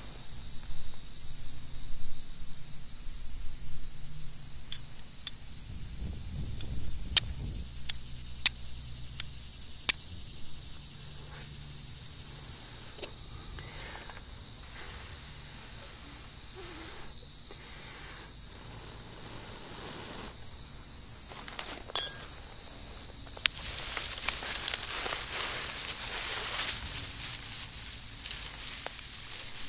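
Flint and steel being struck: a few sharp, widely spaced clicks, the loudest about two-thirds of the way through. Near the end, a bundle of dry grass tinder rustles and crackles as it is handled in the hands.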